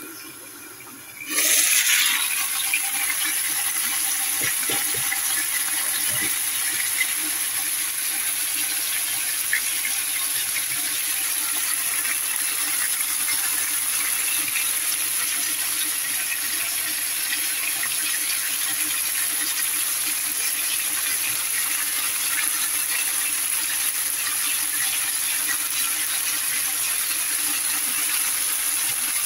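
Halved cherry tomatoes and chili frying in hot oil in an open pan: a steady sizzle with constant fine crackling and spitting. The sizzle jumps sharply louder about a second in, as the glass lid comes off the pan.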